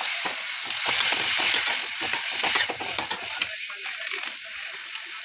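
Food sizzling in a hot pan while being stirred, with many short clicks of the stirring spoon. The sizzle is loudest over the first three seconds, then eases to a quieter hiss.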